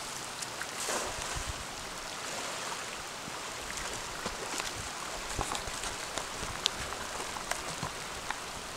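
Steady hiss of rain falling on a river, with scattered sharp raindrop ticks. About a second in comes a brief splash as a thrown cast net hits the water.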